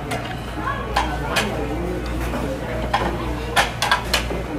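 Metal fork and knife clinking and scraping on a plate while cutting food, with about half a dozen sharp clinks, over a steady murmur of restaurant chatter.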